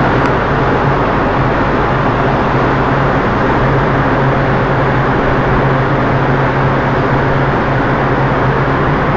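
Steady rushing noise with a low, even hum beneath it: the running engines of the ship doing the filming, mixed with wind and sea.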